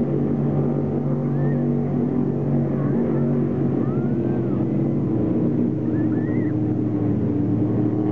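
Engines of an offshore racing powerboat running at high speed, a steady deep drone.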